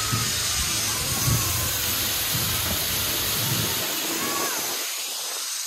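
Fireworks spraying showers of sparks with a steady hiss, over a crowd's faint voices.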